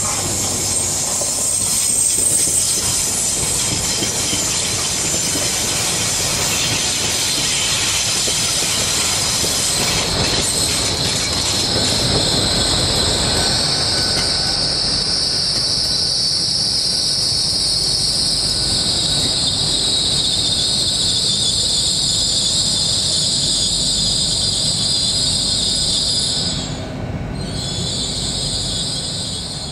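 Train moving past with a loud, high-pitched wheel squeal in two steady tones over the rumble of the wheels. Wheel clatter comes through in the first half, the squeal rises a little in pitch about halfway through, and it breaks off for a moment near the end.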